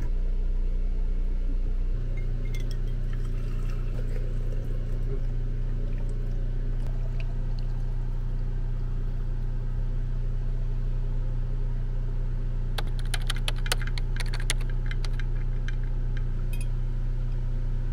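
Hot elderberry tea poured from a glass carafe into a glass mason jar, then a spoon clinking against the glass a number of times near the end, over a steady low hum.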